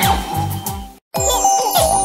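Children's background music with a steady beat that cuts off abruptly about halfway through; after a split-second gap a new tune starts with a tinkling chime gliding downward.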